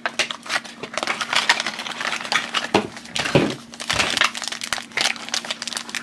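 A small crinkly yellow plastic wrapper being pulled open and unwrapped by hand: a dense, irregular run of crinkling and crackling.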